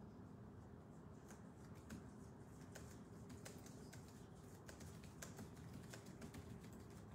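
Faint, irregular clicks of typing on a computer keyboard over quiet room hum.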